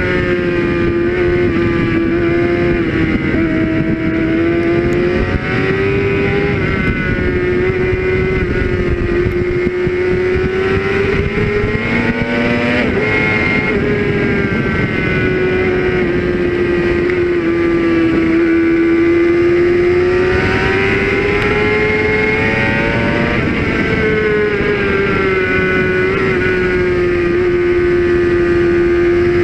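Sport motorcycle engine running hard at track speed, heard onboard with heavy wind rush. The engine pitch rises and falls gently with the throttle, with a sharp drop at a gear change about 13 seconds in.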